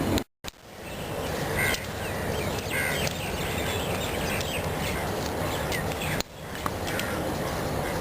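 Crows cawing several times in short calls over a steady outdoor background noise. The sound cuts out abruptly twice, near the start and about six seconds in.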